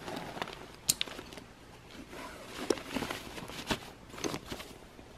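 Footsteps and rustling on the forest floor, irregular, with a few sharp clicks among them.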